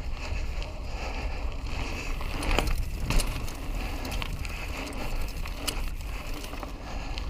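Mountain bike riding along a trail, heard from a helmet-mounted action camera: a steady rumble of tyres on the trail surface and wind on the microphone, with a few sharp clicks and rattles from the bike.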